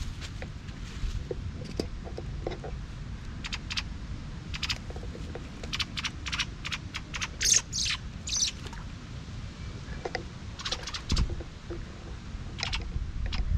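Rustling and scraping in dry grass and brush against a chain-link fence, a run of short sharp crackles clustered in the middle, over a low rumble of wind on the microphone.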